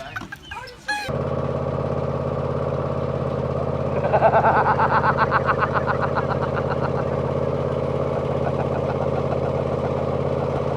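An engine running steadily at idle, a constant even hum. Between about four and seven seconds in, a rapid pulsing chatter sits over the hum.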